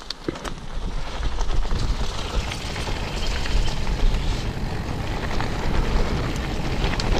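Wind buffeting the microphone over the rolling noise of mountain bike tyres on a dirt forest track, a low rumble that grows louder about a second in. A few sharp clicks and rattles near the start.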